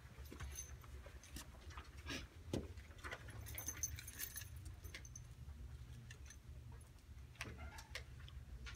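Faint scattered clicks and taps with a short metallic jingle about three and a half seconds in, over a low steady hum.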